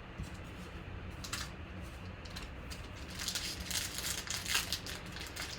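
Trading cards being handled and slid past one another: soft clicks and rustling that grow busier from about three seconds in, over a steady low hum.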